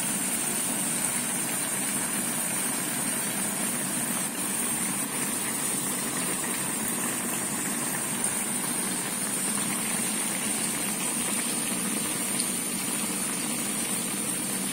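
Pan of tilapia paksiw broth at a rolling boil: steady bubbling and hiss, with a thin, steady high-pitched whine over it.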